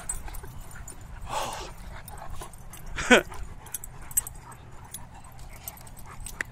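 Two young giant-breed dogs, a mastiff and a Great Dane, play-fighting: a short rough growl-like burst about a second and a half in, then a loud short yelp falling in pitch about three seconds in.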